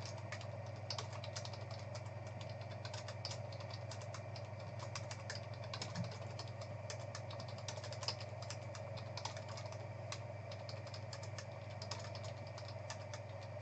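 Typing on a computer keyboard: irregular runs of quick key clicks, over a steady low hum.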